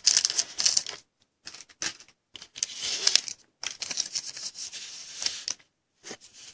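A trading card pack's wrapper crinkling and tearing as it is handled and opened, in several short rustling bursts, loudest in the first second.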